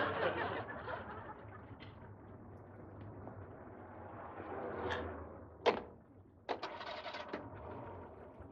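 Audience laughter dying away, then a single sharp click past the middle and, a moment later, a short burst of rattling noise with several ticks.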